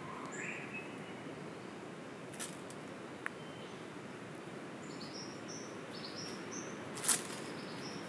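Forest ambience: a steady low background wash with faint calls of small birds, a few short chirps early on and a run of short whistled notes stepping up in pitch from about five to six and a half seconds in. A sharp click about seven seconds in is the loudest sound.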